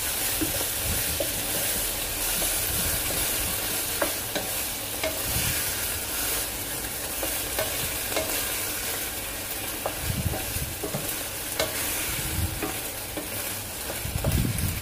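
Beef and vegetables sizzling in a hot wok while a wooden spatula stirs and tosses them, with scraping and scattered light knocks of the spatula against the pan.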